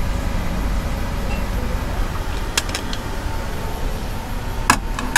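Steady low background rumble with a faint steady hum. A few light clicks come near the middle, and a sharper clink about four and a half seconds in, as a stack of plates is handled.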